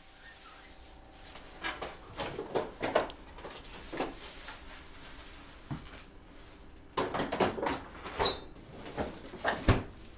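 Knocks, clicks and light rattling of a refrigerator door and of vegetables being taken out of it, in two bursts: one about two seconds in and another from about seven seconds in, with a sharp knock near the end.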